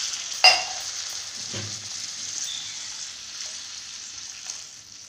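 Potatoes and peas frying in a steel kadhai, sizzling and fading as water is poured into the hot pan. A sharp metal clink sounds about half a second in, and a softer knock about a second later.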